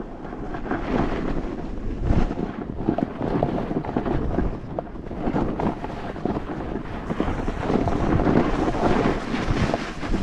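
Wind buffeting the camera microphone, mixed with the scraping hiss of a snowboard sliding over snow as the rider sets off down the slope. The noise rises and falls unevenly throughout.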